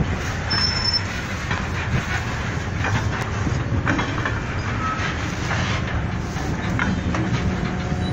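Freight train shunting slowly, with the diesel locomotive's steady low engine hum and the wagons rolling. A few light clicks from the wheels on the rail joints, and two brief high wheel squeals, one near the start and one about five seconds in.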